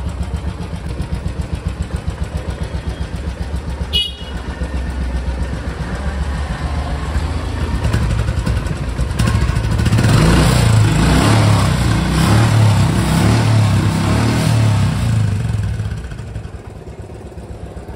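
Royal Enfield motorcycle's single-cylinder engine ticking over with an even low thump, then revved with the throttle, building from about seven seconds in to its loudest and dropping back near the end. A short sharp click with a brief high chirp comes about four seconds in.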